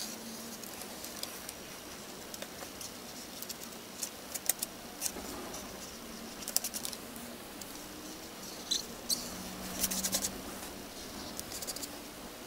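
Scattered light clicks and taps with a little rustling: hands handling a marker and paper on a work surface. Under them runs a faint steady hum.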